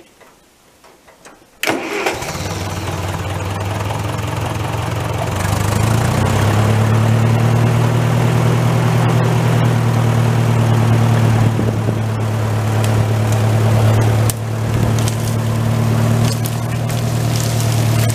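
Massey Ferguson tractor engine starting suddenly about two seconds in, then running steadily and getting louder about five seconds in as it pulls a notched ash tree over on a rope, with a short dip in level near the end.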